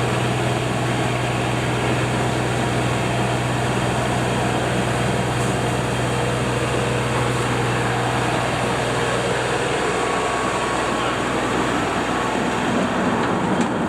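LS MT240e compact tractor's diesel engine running steadily under load with its brush hog (rotary cutter) spinning, mowing a slope.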